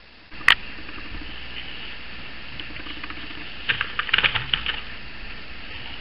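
Crackly clicking and patter of gloved hands handling and dropping raw ground beef into a mixing bowl, coming in a cluster about four seconds in, over a steady low room hum. There is a single sharp click about half a second in.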